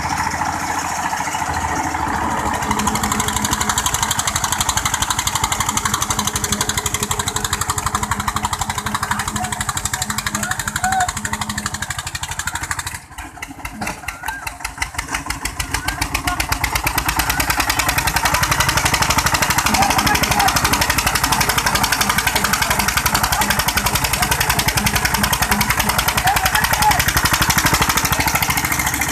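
Diesel engines of Eicher 242 tractors working hard under load, pulling against each other on a chain, with a fast, steady chugging. The sound drops away briefly about 13 seconds in, then comes back louder.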